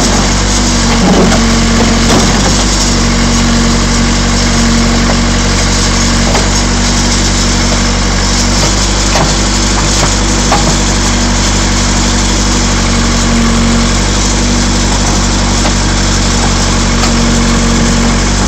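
1987 Case 580 Super E backhoe's diesel engine running steadily, with a few sharp cracks and crunches of the sheet-metal truck box being crushed, near the start and again about halfway through.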